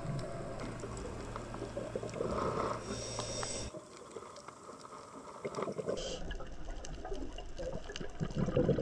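Muffled underwater noise recorded by a diving camera, with bubbling; the sound changes abruptly twice, about a third of the way in and again past the middle, where the footage is cut.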